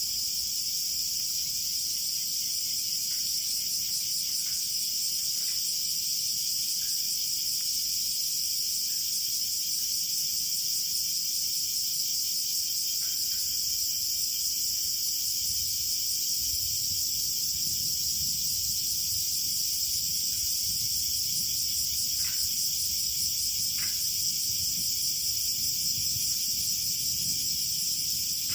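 A chorus of insects chirring steadily at a high pitch, with a few faint ticks now and then.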